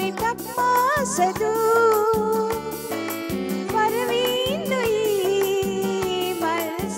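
Background music with a steady beat and a gliding melody line.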